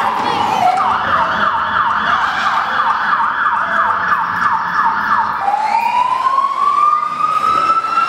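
Emergency-vehicle siren sound effect: a falling wail, then a fast yelp of about three sweeps a second, then a slow rising wail near the end.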